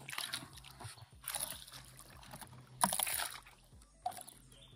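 A hooked peacock bass thrashing at the surface beside a kayak, throwing water in three splashing bursts about a second apart.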